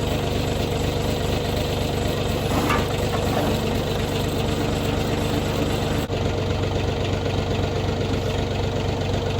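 An engine idling steadily, with an abrupt break about six seconds in, after which the steady drone continues.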